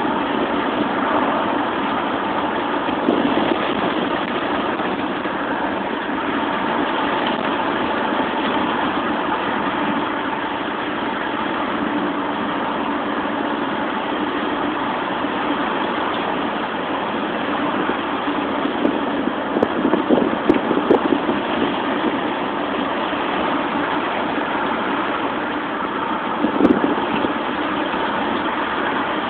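Steady rush of wind and road noise pouring in through an open rear window of a car driving at speed. A handful of brief louder bumps and clicks come about two-thirds of the way in, and one more shortly before the end.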